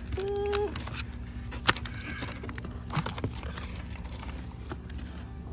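Plastic pipe fittings being handled and knocked together: scattered sharp clicks and taps, the sharpest about 1.7 s in, over a steady low hum. A short held tone, like a brief hum, comes in the first second.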